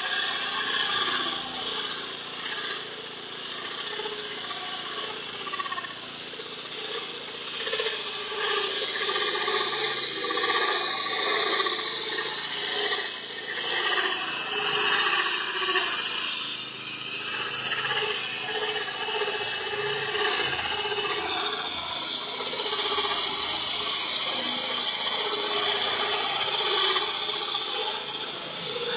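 KSF KF 500 electric concrete core drill, a 1350 W hand-held diamond coring machine, running continuously under power.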